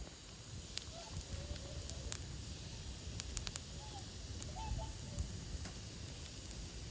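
Wood fire crackling, with scattered sharp pops over a low steady rumble, and a few faint short calls in the distance.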